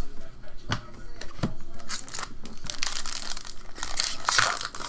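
Foil wrapper of a 2014 Upper Deck SP Authentic Football pack crinkling and tearing as it is ripped open by hand. A few sharp clicks of cards being handled come first, and the crinkling is loudest near the end.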